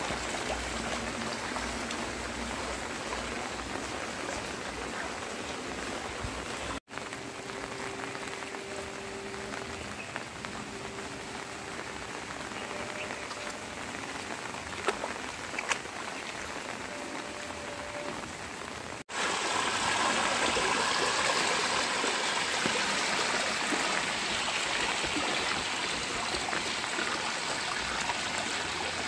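Rain falling steadily onto floodwater covering a lane, an even hiss of drops on the water's surface. About two-thirds through it turns louder and fuller, with water churning as a bicycle's wheels push through the flood.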